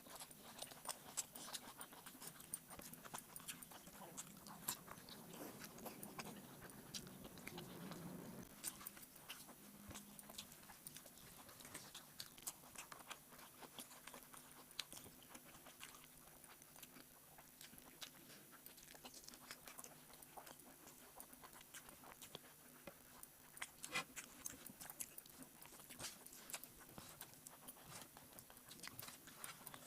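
Faint chewing and mouth sounds of a person eating rice and egg curry, with scattered small clicks.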